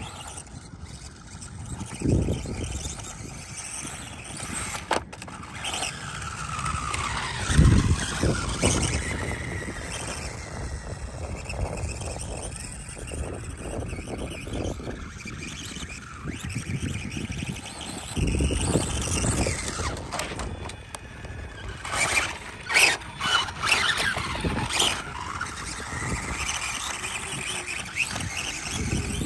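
Electric motor of a SkyRC SR5 1/4-scale RC dirt bike whining, its pitch rising and falling as the bike speeds up and slows down. A few dull low rumbles come and go, the loudest about a quarter of the way in.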